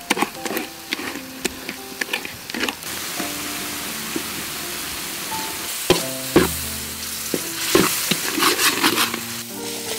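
Fish paste sauce frying in a metal pan, sizzling steadily while a metal spoon stirs and scrapes through it. There are many short scrapes and a few sharper knocks of the spoon on the pan about six and eight seconds in.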